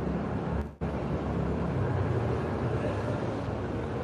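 Steady low background rumble, like traffic or wind noise, that cuts out briefly near the start.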